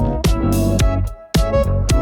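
Upbeat electronic pop song with a steady drum beat, a heavy bass line and a bright lead melody; the beat drops out briefly about a second in before coming back.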